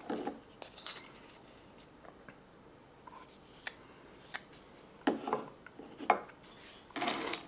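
Handling and opening a ration food packet: scattered small clicks and crinkles, then three short rustling bursts about a second apart near the end.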